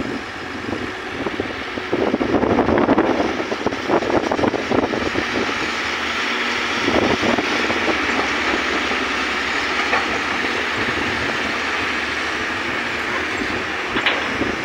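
Hitachi hydraulic excavator's diesel engine running under load as it digs, swings and dumps a bucket of soil into a dump truck, with rattling. It gets louder and crackly a few seconds in, with a brief clatter midway.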